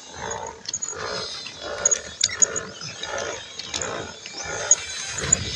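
Pedal-driven water bike moving across a lake, making a rhythmic whooshing about twice a second with scattered light clicks.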